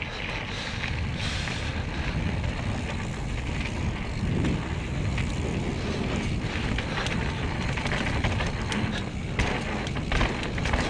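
Wind buffeting an action-camera microphone over the rolling rumble of mountain bike tyres on gravel and packed dirt, with scattered short clicks and rattles in the second half.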